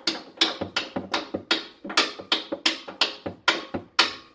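A steady run of sharp metal-on-metal taps, about three to four a second, each ringing briefly: a hammer driving the mounting bolt through a new front lower control arm. The taps stop near the end.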